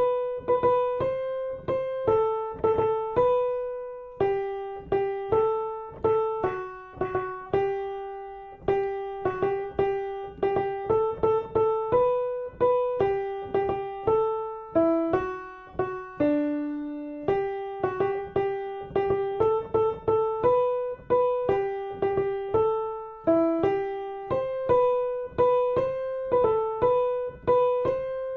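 Piano playing the alto line of a choir piece as a single melody, one struck note at a time at a moderate pace with a few longer held notes: a part-learning track for choir altos.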